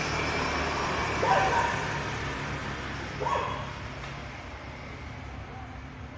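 A dog barking twice, two short barks about two seconds apart, over a steady background rumble.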